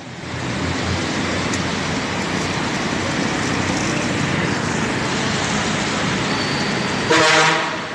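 Steady traffic noise on a rain-wet street, an even hiss of engines and tyres, with a brief, louder pitched tone about seven seconds in.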